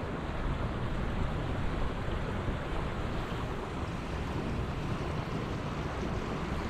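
Steady rushing of flowing river water, with wind on the microphone adding a low rumble.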